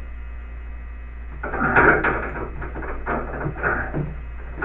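Handling noise against a door: a run of irregular knocks, rattles and scraping that starts about a second and a half in, over a low steady hum.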